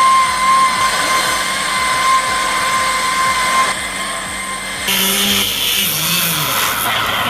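A motorised tool runs with a steady, high-pitched whine that stops a little over halfway through. About five seconds in, a different machine sound takes over, with hiss and low rising and falling tones.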